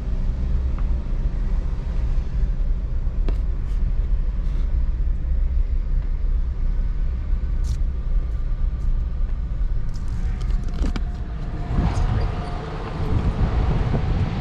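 Car driving, heard from inside the cabin: a steady low rumble of engine and road noise, with a few light clicks.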